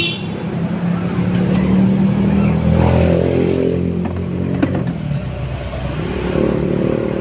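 Honda Beat scooter's fuel-injected engine running, with a rise and fall in revs around the middle, just after its throttle body was refitted.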